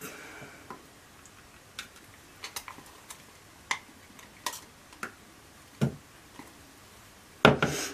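Scattered light clicks and taps of small plastic containers and utensils being handled at a worktable, spaced irregularly, with a duller knock about six seconds in and a brief louder clatter near the end.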